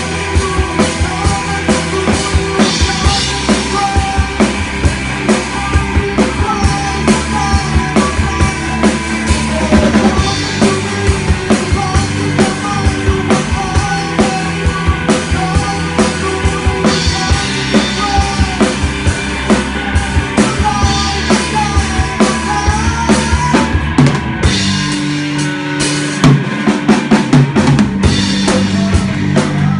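Rock band playing live, led by a drum kit hitting a steady beat of kick and snare, with bass and guitar underneath.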